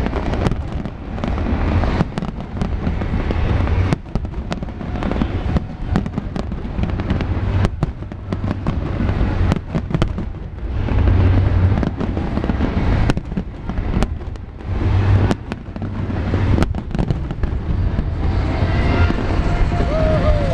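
Large fireworks display: shells bursting in a rapid, irregular string of sharp bangs and cracks over a continual deep rumble.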